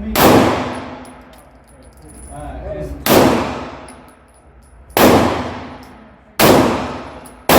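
Glock 17 9mm pistol fired slowly, five single shots about one and a half to three seconds apart, each followed by a long ringing fade.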